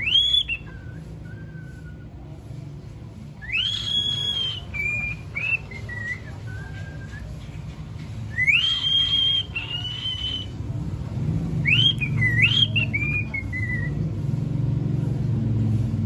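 Cockatiel singing a whistled song: each phrase climbs to a high held note, then breaks into short falling notes. It comes in four phrases with pauses between, the longest about two seconds.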